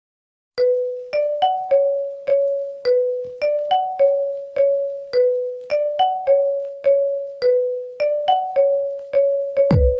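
A ringtone melody: a short phrase of single, bell-like keyboard notes in the middle register, each ringing and dying away, looped over and over. It starts about half a second in, and near the end a deep bass thump comes in as the next tone begins.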